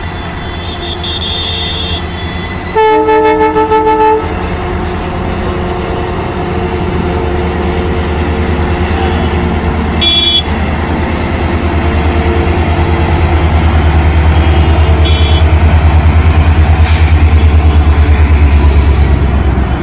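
WDP4D diesel locomotive hauling a passenger train, its two-stroke EMD V16 engine running with a deep rumble that grows steadily louder as it draws near. A loud horn blast of about a second and a half comes about three seconds in, and a short high toot comes about ten seconds in.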